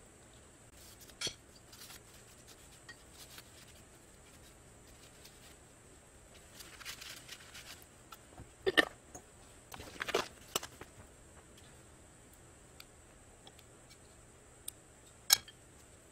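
Small clicks and taps of knife-handle parts and brass pins being handled and set down on a paper-covered workbench, with a short rustle about seven seconds in and the sharpest clicks around nine, ten and fifteen seconds. A faint steady high whine sits underneath.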